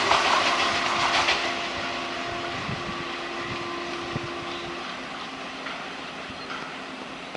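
Passenger train running past and moving away, its wheel clatter fading steadily. Twice in the first five seconds the ALCO WDG3A locomotive's horn sounds faintly from up ahead as long steady notes.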